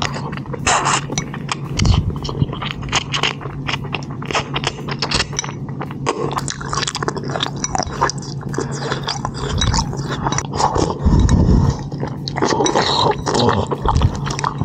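Close-miked ASMR sounds: a dense, irregular run of scraping, crackling and tapping, with a few deep thumps, one about two seconds in and another near eleven seconds.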